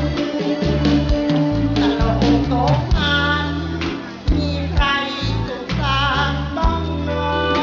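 Live Thai Isan band music: steady bass notes under a singer's voice, which comes in about three seconds in with long, wavering held notes.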